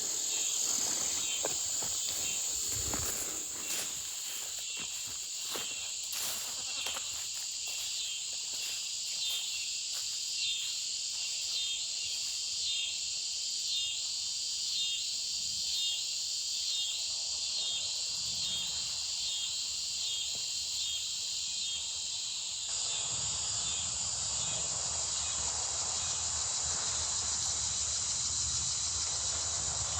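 Evening insect chorus: a steady, high-pitched trill with a slower, regular pulsing call over it for a while, and a few light knocks near the start.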